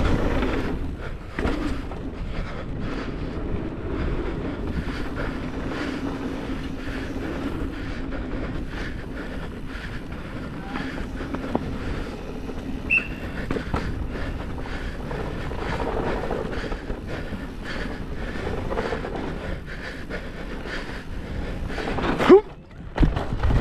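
Downhill mountain bike ridden fast over rocky trail: a steady clatter of tyres, chain and suspension knocking over rocks, with wind on the microphone. A brief high squeal comes about halfway through, and a louder jolt near the end.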